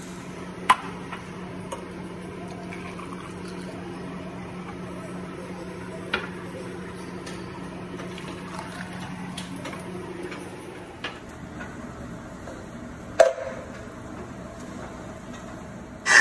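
Carrot juice poured from an electric juicer's jug into glasses over the juicer motor's steady hum. The hum cuts off about eleven seconds in, and a few sharp clinks of glass mark the pouring, the loudest near the end.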